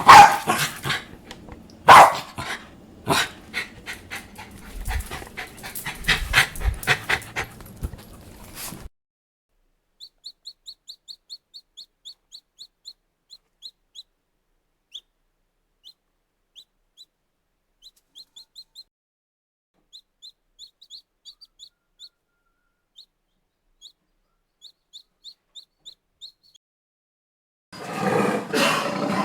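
A dog barking and yelping in sharp, loud calls for the first nine seconds or so. Then comes a long run of faint, short, high chirps. Near the end a loud, rough roar begins.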